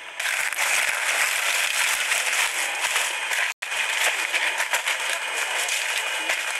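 Steady outdoor hiss with no clear pitch, broken by a brief complete dropout about three and a half seconds in.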